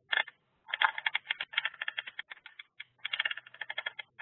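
Typing on a computer keyboard: two runs of quick key clicks with a short pause between.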